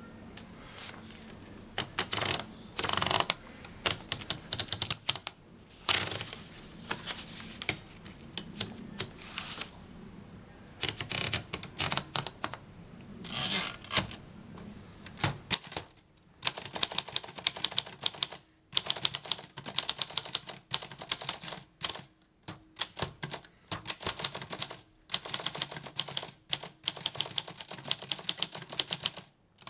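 Groma Kolibri portable typewriter being operated: scattered bursts of mechanical clatter through the first half, then from about sixteen seconds in, runs of rapid key strikes, several clacks a second, with short pauses between runs.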